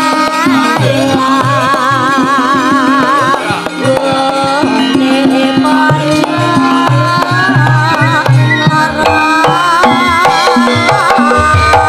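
A sinden (Javanese female singer) singing with wide vibrato over gamelan accompaniment, with kendang hand-drum strokes keeping the rhythm.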